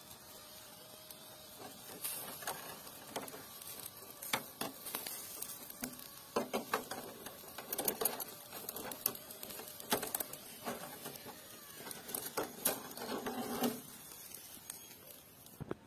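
Metal kebab skewers clicking and rattling against each other and the grill as they are handled and gathered up, over the crackle of meat sizzling on hot charcoal. The clatter stops about a second before the end, with one last click.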